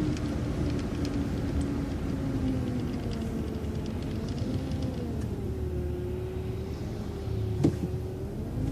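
City transit bus heard from inside, its motor rumbling with a thin whine that falls in pitch over the first few seconds as the bus slows, then wavers up and down. A single sharp click comes near the end.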